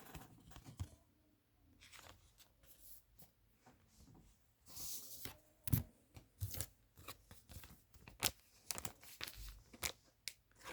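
Trading cards being slid into thin plastic card sleeves: faint crinkles and rustles of the plastic with light taps and clicks as the cards are handled.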